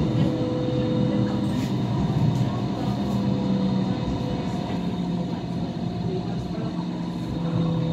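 Light rail car running along its track, heard from inside the carriage: a steady rumble of wheels on rail with the hum of the drive, which dips slightly in pitch about halfway through.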